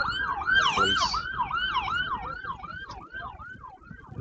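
Police siren on a fast yelp, each wail dropping sharply in pitch about three times a second. It fades steadily as the vehicle moves away.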